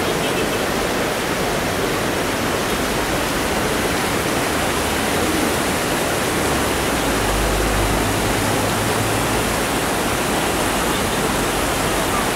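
A fast mountain river rushing over rocks, a steady wash of white water.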